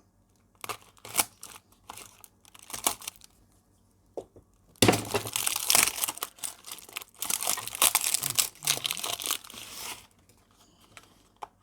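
Packaging being unwrapped by hand, crinkling and tearing: scattered crackles at first, then about five seconds of continuous loud rustling from about five seconds in.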